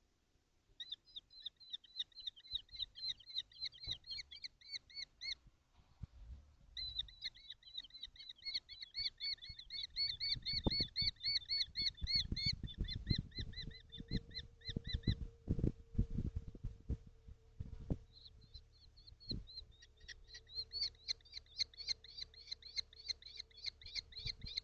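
Young kestrels calling in rapid, shrill trilled series, about ten notes a second, in three long bouts. Heavy bumping and knocking is loudest in the middle stretch.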